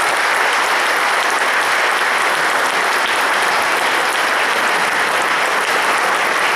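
Lecture-hall audience applauding, a steady, even clapping.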